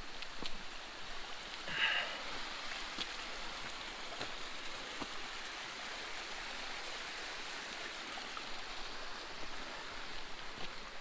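Steady rush of water in a wet forest, with a few faint ticks of drops. A brief louder sound comes about two seconds in.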